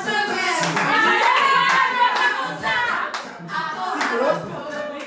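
Dance music with a steady beat, with women's voices singing along and hands clapping.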